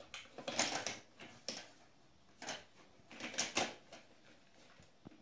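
Hard plastic pieces of a toy vanity set clattering and clicking as a child handles its flower-shaped makeup compacts, in four or so short bursts.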